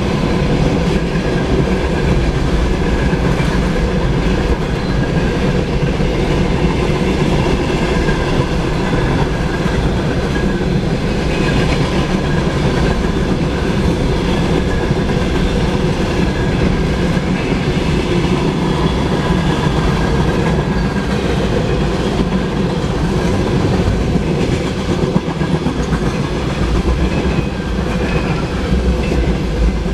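Freight train cars, tank cars and covered hoppers, rolling past close by: a loud, steady rumble and clatter of steel wheels on the rails.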